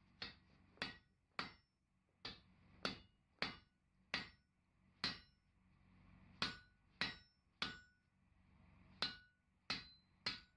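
Hand hammer striking a glowing hot steel bar held in the anvil's hardy hole, about fourteen sharp blows, mostly in groups of three with short pauses between. The anvil rings briefly after each blow.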